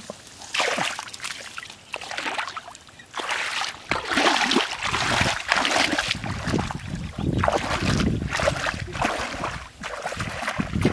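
Shallow muddy water splashing and sloshing in irregular bursts as a person wades through it and churns it with his feet, louder from about four seconds in.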